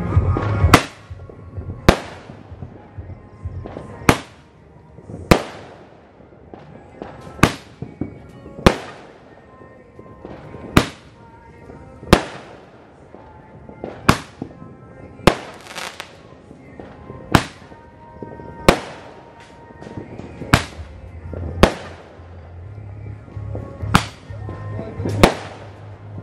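Roman candle firing shot after shot: sharp bangs about every one to two seconds, often coming in pairs, as it sends stars bursting into the sky.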